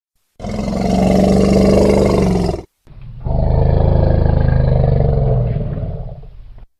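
Elephant calling: two long, low roars, the second fading out towards its end.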